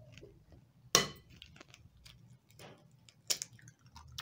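An egg being cracked on the rim of a glass mixing bowl: a sharp tap about a second in and another at about three and a half seconds, with a few faint ticks of eggshell and handling between them.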